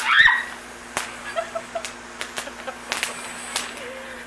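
Small ground fountain firework spraying sparks: a steady hiss broken by scattered sharp crackling pops at irregular intervals, after a brief loud burst at the very start.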